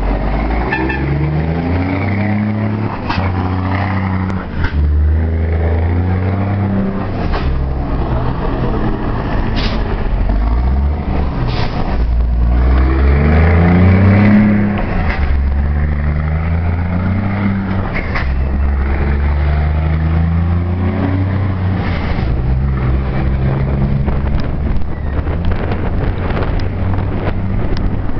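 Car engine revved loudly and repeatedly, held at steady speeds and rising and falling between them, with a swell to the loudest point about thirteen to fourteen seconds in.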